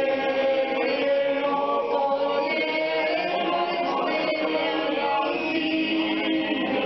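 A group of people singing a song together in a sing-along, the voices holding long notes.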